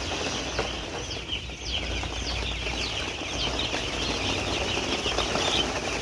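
Thousands of two-day-old chicks peeping together in a brooder: a dense chorus of short, high, falling cheeps overlapping without a break.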